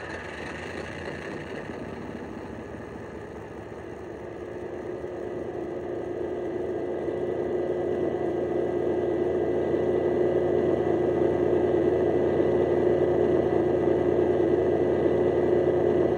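Diesel locomotive engine sound from a Coastal DCC sound file for a Class 68, played by a decoder through a large EM2 speaker in a Dapol OO model. The engine drone grows louder over the first ten seconds or so, then runs steady.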